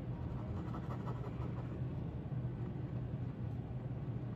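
Pen scratching on paper in quick back-and-forth strokes as a circle is shaded in, over a steady low hum.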